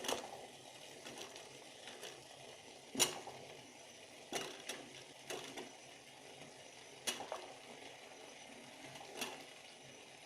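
Scattered clicks and knocks of kitchen utensils on a pot, about seven of them, the loudest about three seconds in, over a faint steady hiss.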